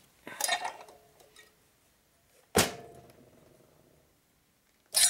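Metal knocking and scraping as a Harley shovelhead head part is worked down over its studs: a short scrape about half a second in, then two sharp metallic knocks with a brief ring, about halfway through and near the end. The part resists going on, which the mechanic thinks is it fighting the gasket.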